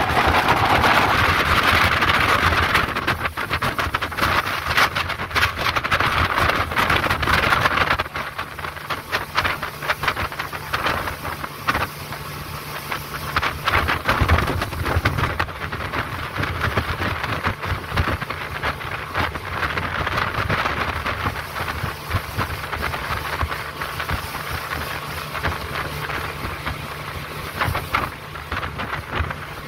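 Speedboat under way on a river: steady engine hum with wind buffeting the microphone and water rushing past. The rushing is loudest for the first eight seconds or so. After that it eases and the low engine hum stands out.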